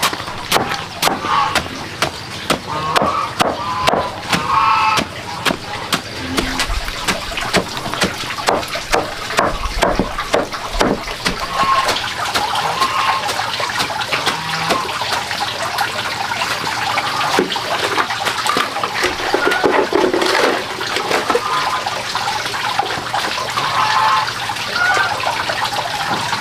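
Cleaver chopping a fresh bamboo shoot into small pieces, the blade knocking through onto a woven plastic sheet over concrete in a fast, uneven run of strokes, with a steady rushing hiss behind.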